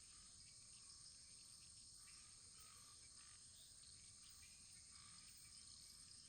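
Very faint wood fire: a steady high hiss with soft, scattered crackles.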